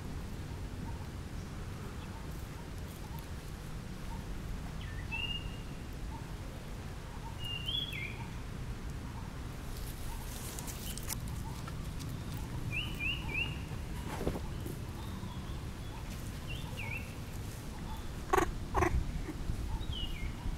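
Short high chirps every few seconds, once three in quick succession, over a low steady rumble. A brief crackling rustle comes about ten seconds in, and a few sharp knocks close together near the end are the loudest sounds.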